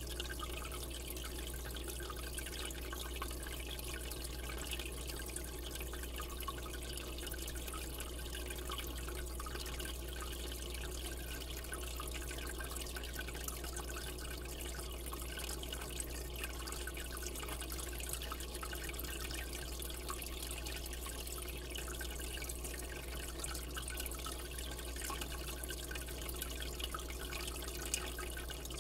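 Aquarium water circulating steadily: a continuous trickling, splashing hiss over a low, steady hum.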